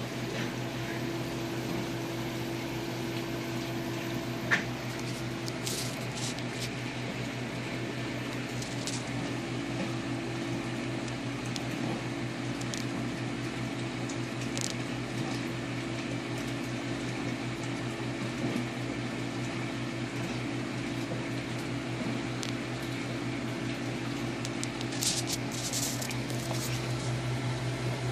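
Steady low mechanical hum, with faint clicks and small water splashes now and then; the sharpest click comes about four and a half seconds in.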